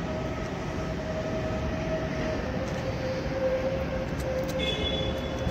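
Steady mechanical drone with a steady hum that drops slightly in pitch about halfway through.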